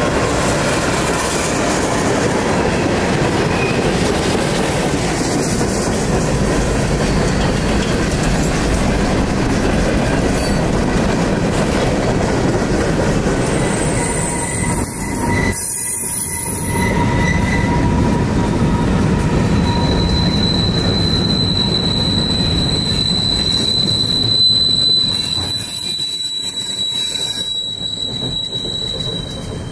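CSX freight train's cars rolling past, a steady loud rumble of wheels on rail. About two-thirds of the way through a steady high wheel squeal sets in and holds, with a shorter squeal a little before it.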